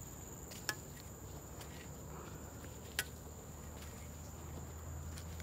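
Insects buzzing steadily on one thin, high note, with a faint low rumble beneath and two light clicks, one just under a second in and one about three seconds in.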